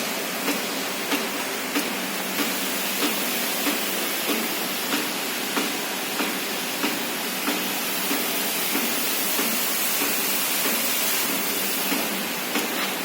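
33 kW electric steam boiler running at pressure: steam hissing steadily with a regular ticking, about one and a half ticks a second. The ticking stops for a few seconds past the middle while the hiss grows brighter, then resumes near the end.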